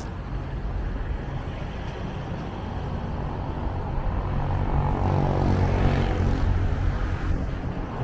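City street traffic: a steady low engine rumble that swells as a vehicle passes a little past the middle, then eases.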